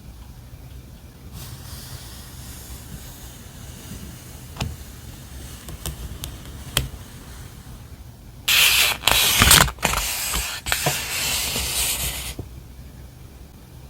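Stationery packaging handled close to the microphone: a faint hiss with a few small taps, then about four seconds of loud rustling of paper or plastic wrapping that stops suddenly.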